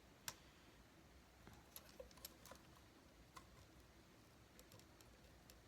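Near silence with faint, scattered clicks and ticks of small plastic robot-kit parts being handled and pressed together, the sharpest about a quarter second in.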